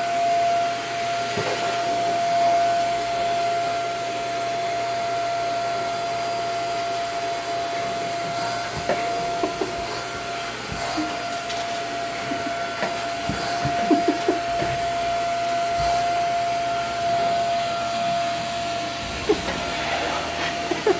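Vacuum cleaner motor running steadily, a constant airy hum with a steady high whine, broken by a few short knocks and bumps.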